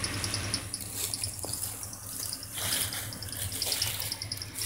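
Footsteps crunching and shuffling through dry leaf litter, with a high, rapid, even pulsing of insects calling behind.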